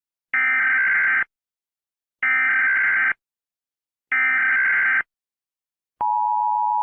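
Emergency Alert System SAME header: three identical bursts of data tones, each just under a second long with about a second's pause between them, marking the start of an emergency alert. Near the end, the steady two-tone EAS attention signal begins.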